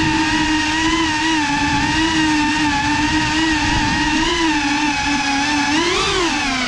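FPV racing quadcopter's motors and propellers whining steadily, the pitch wavering with the throttle; about six seconds in the pitch climbs sharply and falls back as the drone punches the throttle.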